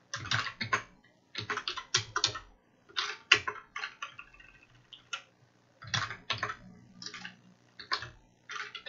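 Typing on a computer keyboard in quick bursts of keystrokes separated by short pauses.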